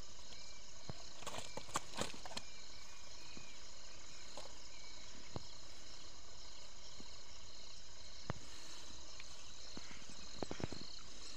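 Steady high-pitched chorus of crickets and other insects, with a few faint clicks and taps about a second or two in and again near the end.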